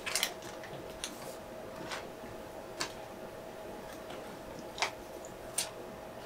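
A few scattered light ticks and crinkles as a plastic film dressing and an ultrasound probe are handled, over a faint steady hum.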